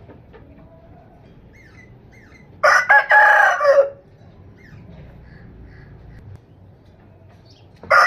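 A rooster crowing: one full cock-a-doodle-doo of just over a second, starting about a third of the way in and ending on a falling note. The next crow begins right at the end, with faint short chirps in the quiet between.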